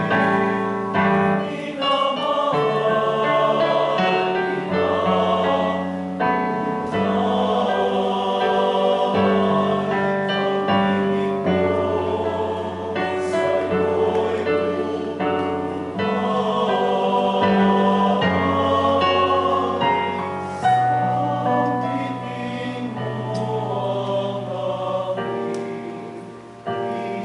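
A choir sings a slow hymn with keyboard accompaniment, in long held notes over a sustained bass.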